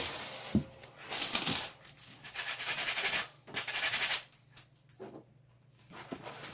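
Scattered small clicks and knocks mixed with brief bursts of rustling or scraping, uneven and with short gaps between them.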